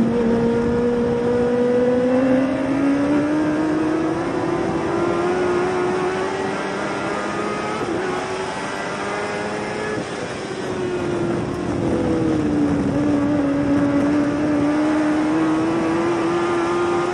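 Race car engine heard from inside the cockpit under load. Its pitch climbs over the first several seconds and holds, drops as the throttle is lifted about ten seconds in, then climbs again as the car accelerates.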